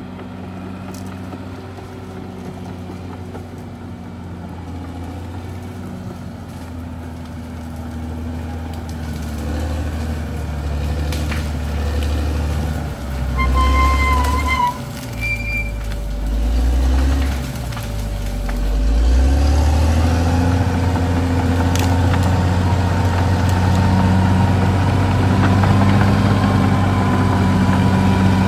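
Caterpillar D6R XL bulldozer's diesel engine working under changing load, its pitch dropping and rising as it lugs and recovers, growing louder through the second half. A few brief high squeals come near the middle.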